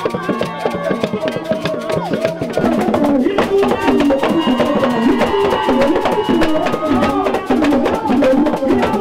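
Drum and percussion music with a clicking wood-block rhythm and voices singing along. It gets louder about two and a half seconds in.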